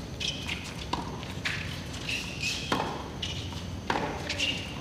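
Tennis rally: the ball is struck sharply by rackets and bounces a few times, about a second apart, while tennis shoes squeak briefly and repeatedly on the hard court.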